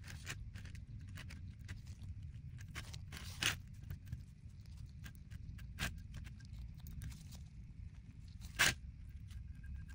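Handling noise from nitrile-gloved hands and a tube of gasket sealant: scattered light rustles and clicks, with two louder short rustles about three and a half and eight and a half seconds in, over a low steady hum.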